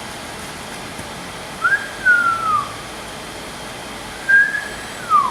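A person whistling: short clear whistled glides that rise and then fall, in two phrases about a second and a half in and again near the end, over a steady low room hum.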